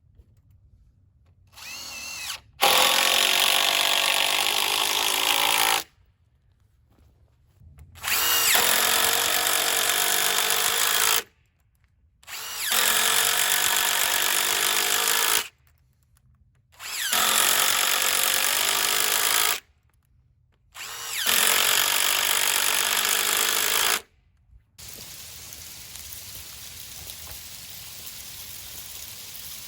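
A handheld power tool running in five bursts of about three seconds each, separated by short silences. Each burst starts with a rising whine as the motor spins up, then holds a steady high, whirring noise. After the last burst a quieter steady hiss remains.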